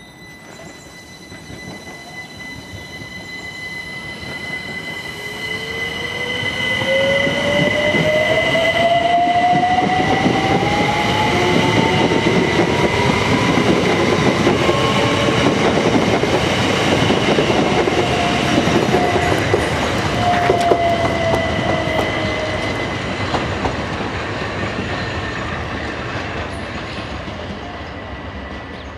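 Two coupled Bombardier Class 378 Electrostar electric multiple units passing on the rails. The sound builds up, holds and fades away, with a steady high whine, and in the middle a second whine that rises in pitch.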